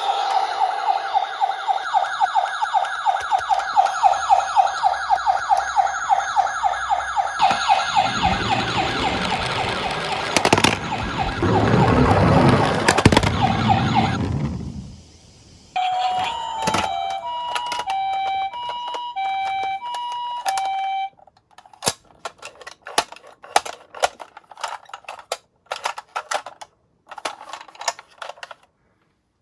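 Toy ambulance's electronic siren sound module playing a fast-warbling siren. Partway through, a rolling rumble joins it and lasts until the siren cuts off. After a short pause comes a two-note electronic beeping, then a run of sharp plastic clicks and knocks.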